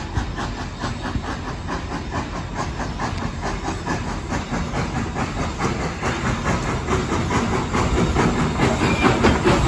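Southern Railway 154, a 4-4-0 steam locomotive, working toward the listener. Its exhaust chuffs in a steady rhythm over hissing steam, growing louder over the second half as it draws near.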